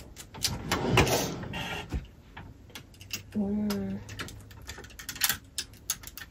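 Sunglasses and their cases clicking and clattering lightly as they are picked up and handled, with a short breathy burst about a second in and a brief hummed "mm" near the middle.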